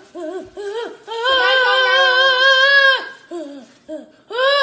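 A young boy's voice making high, drawn-out wordless vocal sounds, imitating the sex noises he hears from his parents' room: a few short rising cries, then one long held note of about two seconds, and another starting near the end.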